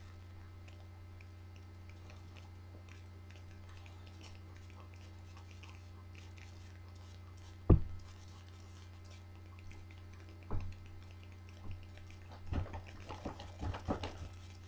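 A steady low hum, with one sharp thump about eight seconds in, another about ten and a half seconds in, and a run of bumps and knocks near the end.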